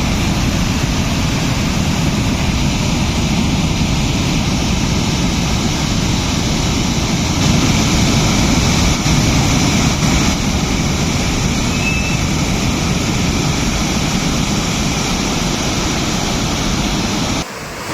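The Tandava river in flood after heavy rain, a fast torrent making a loud, steady rushing noise that cuts off abruptly near the end.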